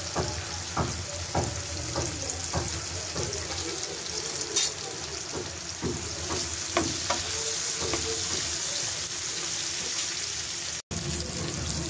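Sliced onion, garlic and dried red chillies sizzling in hot oil in a frying pan for a tempering, with a wooden spatula knocking and scraping the pan as they are stirred. The sound cuts out for an instant near the end.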